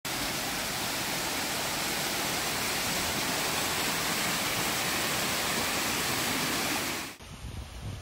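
Waterfall cascading over rock: a steady, even rush of water that cuts off suddenly about seven seconds in.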